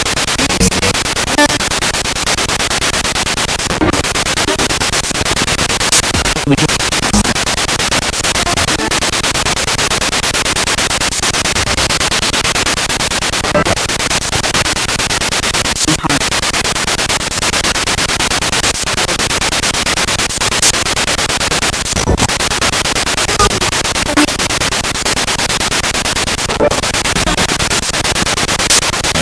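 Spirit box radio sweeping through stations: a steady loud static hiss broken by short snatches of broadcast voice or music and brief dropouts every few seconds.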